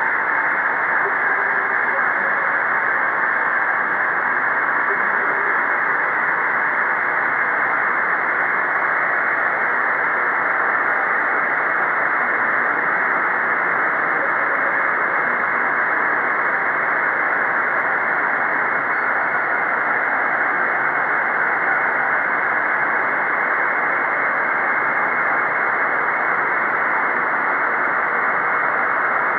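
Computer-generated sonification of the logistic map in its chaotic regime: a steady, dense hiss-like drone with no clear notes, the deterministic chaotic orbit sounding like noise.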